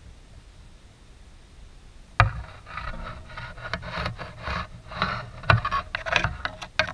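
Quiet at first, then from about two seconds in a run of close, irregular rubbing, scraping and knocking, starting with a sharp knock and ending suddenly.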